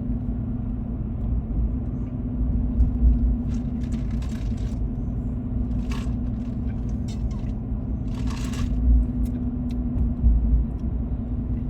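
Road and engine noise of a moving car heard from inside the cabin: a steady low rumble with a constant hum. There are a couple of short hissing sounds, about six and eight and a half seconds in.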